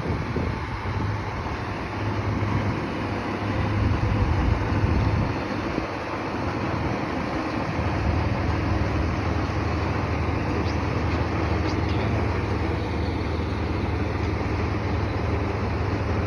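Fire truck's diesel engine idling: a steady low rumble.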